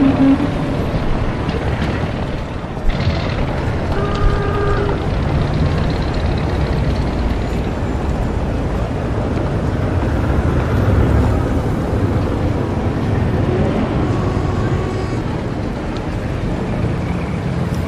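Old-time city street ambience: a steady rumble of early motor cars and traffic. A sharp click comes just before three seconds in, and a short pitched tone about four seconds in.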